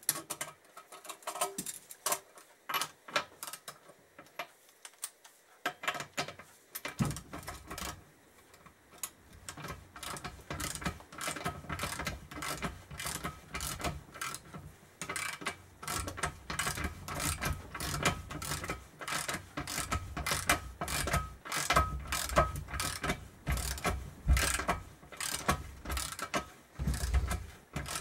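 Ratchet clicking as it is worked back and forth to tighten a press tool, drawing a new swingarm bearing into the aluminium swingarm pivot of a Suzuki Hayabusa. A few scattered clicks at first, then quick, continuous clicking from about seven seconds in, with some low knocks.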